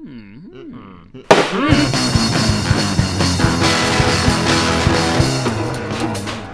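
Rock music: a quieter wavering, wobbling tone, then about a second in the full band comes in loudly and plays on steadily.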